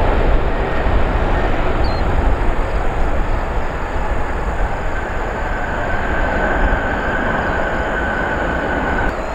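Jet engine rumble of a Boeing 777 airliner touching down and rolling out on the runway. A steady whine joins about halfway through and stops abruptly near the end.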